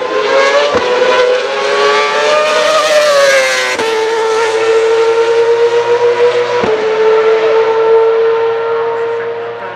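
A 2012 Formula 1 car's naturally aspirated 2.4-litre V8 engine running at high revs: a high, buzzing engine note that rises and then falls as the car passes in the first four seconds. It then holds a steady high pitch, broken abruptly twice.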